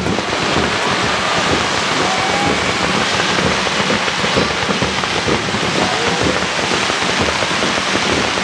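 Fireworks crackling in a dense, continuous hail of small pops that starts suddenly and holds steady, with a few faint whistles rising through it.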